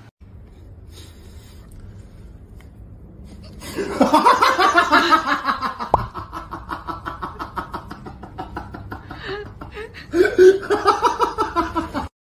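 A person laughing hard in a long run of rapid bursts, starting about four seconds in, easing off briefly, then laughing loudly again near the end.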